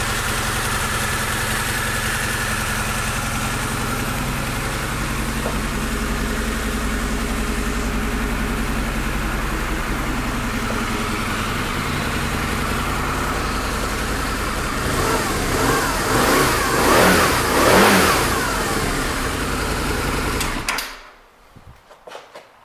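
2003 Harley-Davidson V-Rod's liquid-cooled Revolution V-twin idling steadily, then revved up and back down about three times. The engine sound cuts off suddenly near the end.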